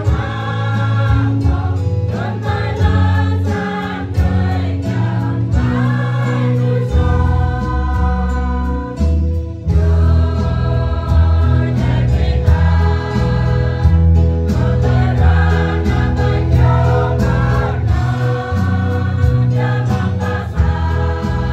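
Church choir singing a hymn in several voices, over a steady low bass line that moves from note to note.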